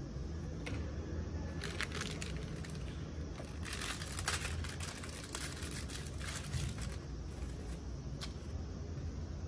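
Thin wrapping crinkling and rustling as it is handled in the fingers, in a short burst about two seconds in and a longer spell from about four to seven seconds in, over a steady low hum.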